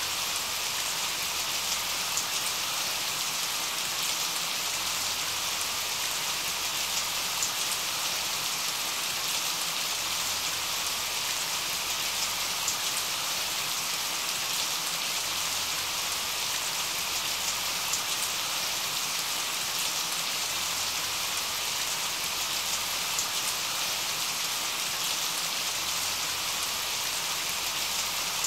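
Steady rain falling, an even hiss with small scattered drop ticks through it.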